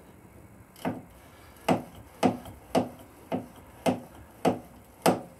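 A freshly oiled pivot part at the rear of a BMW R1150GS being worked back and forth by hand to work the oil in, giving eight sharp clicks, about two a second.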